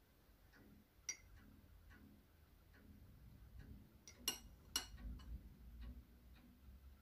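A few sharp clinks of a spoon against a ceramic cup and saucer in a quiet room, one about a second in and the two loudest close together past the middle, with fainter ticks and a low hum between them.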